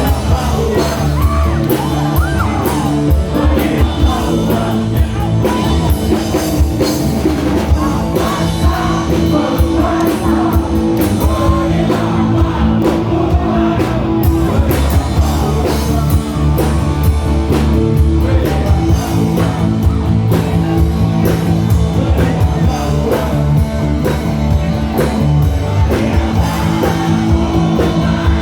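Live rock band playing a song, with a singer over electric guitar, bass and drum kit.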